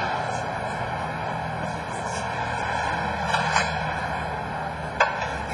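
Fire engine's engine idling with a steady drone, with a few faint clicks.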